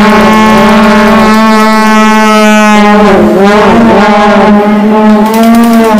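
Ice-arena horn sounding one long, very loud, steady note that stops at the end.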